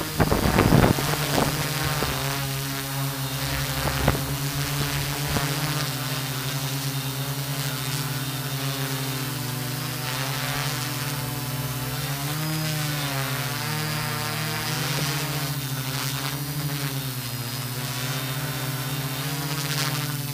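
Multicopter drone's electric motors and propellers buzzing steadily, the pitch wavering up and down a few times. Gusts of wind noise hit the microphone in the first second.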